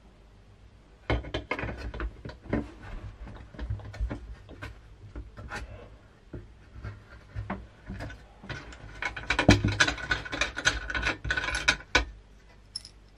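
Needle-nose pliers scraping, clicking and knocking against a metal strip and the steel base plate of bathroom scales as the strip is worked loose. The sounds start about a second in, come irregularly, and are busiest and loudest near the end.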